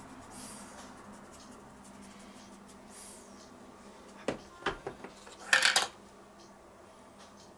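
Kitchen crockery and utensils clattering: a few light knocks, then a brief louder clink-and-clatter of dishes.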